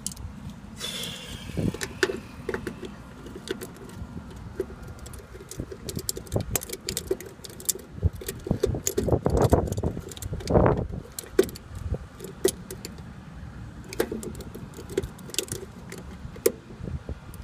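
Small metallic clicks and rattles of hand-tool work at an electrical terminal block, a screwdriver being turned on a lug screw and wires being handled, with a denser clatter about nine to eleven seconds in. A low steady rumble runs underneath.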